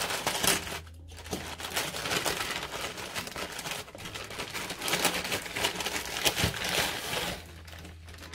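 Plastic courier mailer bag crinkling and rustling as hands grip and turn it, in irregular crackly spurts with a brief pause about a second in.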